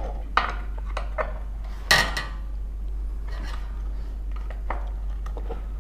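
Metal clinks and taps of a screwdriver and screws against a ceiling fan's motor hub and blade brackets as the blade screws are tightened: several separate knocks, the loudest a sharp ringing clink about two seconds in.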